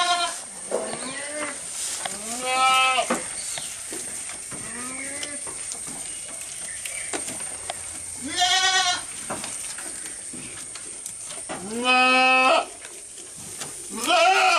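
Goats bleating again and again: about six separate calls a couple of seconds apart, some loud and some fainter, the longest and loudest near twelve seconds in.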